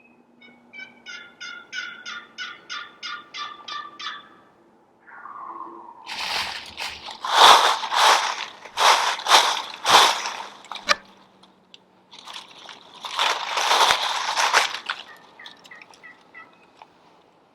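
A run of about ten evenly spaced turkey yelps, then wild turkey gobbling loudly twice, first from about six seconds in and again from about twelve seconds in. A few faint yelps follow near the end.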